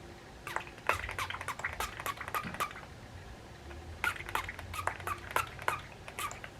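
Rapid light clicks and crackles in two flurries of about two seconds each, with a short pause between them.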